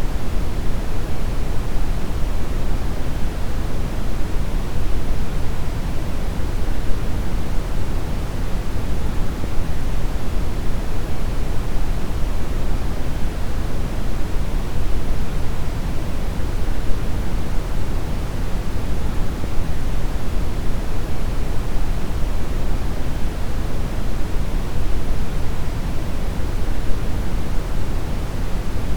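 Steady, unchanging brown noise: a deep rumbling hiss weighted heavily toward the low end, with no tones, events or variation.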